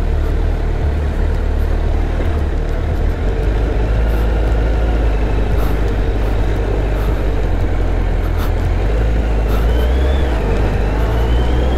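Motorcycle being ridden down a steep hill road: the engine running steadily under a heavy low rumble of wind on the camera microphone, with a faint thin whine rising briefly twice.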